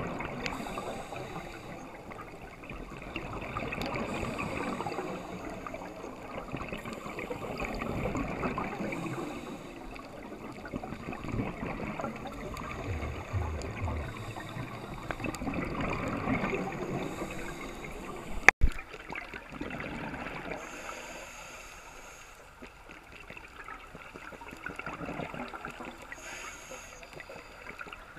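Scuba regulator exhaust bubbles gurgling underwater, heard through a camera housing, swelling and fading about every four seconds with each breath. One sharp click about two-thirds of the way through.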